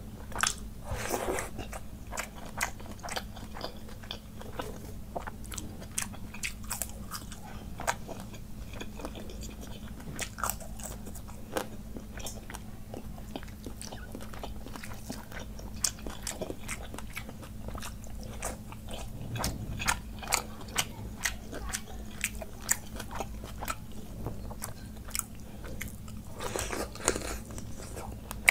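Close-miked eating of panta bhat by hand: fingers mixing the wet rice in its water and mouthfuls being chewed, with many small crisp clicks and crunches scattered throughout over a steady low hum.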